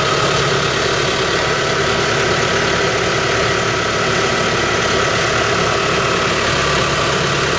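New Holland T5050 tractor's four-cylinder diesel engine running steadily at idle.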